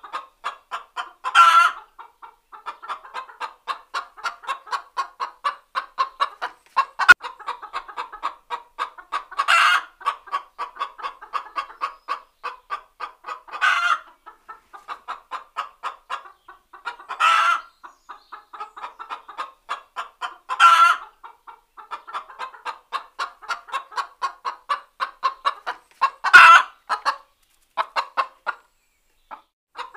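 Domestic hen's laying cackle (egg song): a steady run of short clucks, about three a second, broken every few seconds by a louder, drawn-out squawk, six times in all. A single sharp click about seven seconds in.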